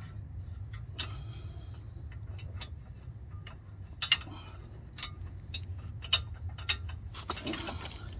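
Irregular metallic clicks and clinks from handling the brake caliper, its bolts and hand tools while the caliper goes back onto the truck, over a steady low hum.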